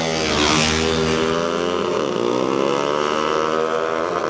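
Several small motorbikes accelerating hard down a drag strip at full throttle, engines revving up with their pitch dipping as they shift gear about two and four seconds in. A brief rush as the nearest bike passes close about half a second in.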